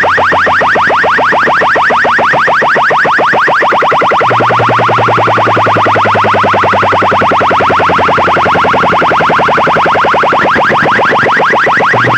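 Large DJ loudspeaker rig of the kind used in Bengali sound-box competitions, loudly playing an electronic effect of rapid rising chirps, many a second, over a steady low bass tone.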